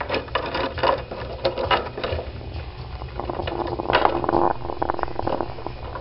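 An African grey parrot's claws scratching and tapping on a ledge as it walks, followed from about three seconds in by a rough, raspy growl that is loudest about four seconds in.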